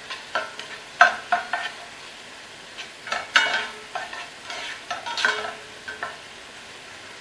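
A sofrito frying in a pot with a steady sizzle, stirred with a utensil that scrapes and knocks against the pot in a dozen or so irregular strokes.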